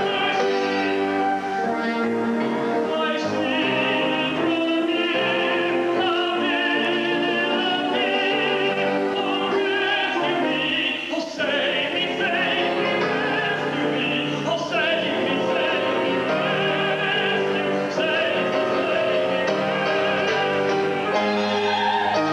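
Opera singing with orchestral accompaniment, the voice held in long notes with a wide vibrato.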